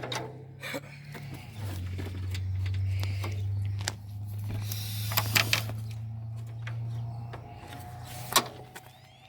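Scattered clicks and knocks of parts and tools being handled during car repair work, with a cluster about five seconds in and a sharp knock near the end, over a steady low hum.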